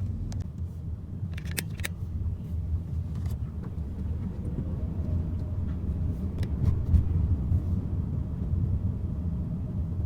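Steady low rumble of a car's engine and road noise heard inside the cabin while driving, with a few light clicks.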